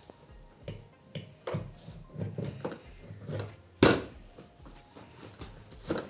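An office chair seat being pushed down onto its gas lift cylinder: a run of handling knocks and clunks, with one loud, sharp knock a little before the four-second mark.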